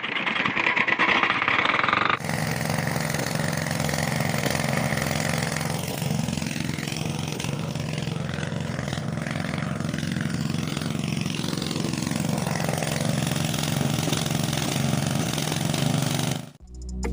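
Miniature model diesel engine running, belt-driving a small toy water pump, with water pouring and splashing into a trough. The sound changes abruptly about two seconds in, then runs steadily.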